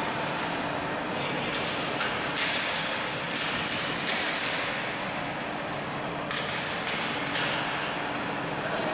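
Hockey sticks knocking against the puck and the ice during boot ice hockey play: about nine sharp clacks at uneven intervals, each echoing in the rink's hall, over a steady low hum.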